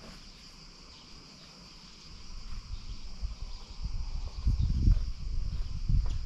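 A steady high chirring of insects throughout. From about two seconds in, low irregular rumbling gusts swell underneath it, loudest just before the end, like wind buffeting the microphone.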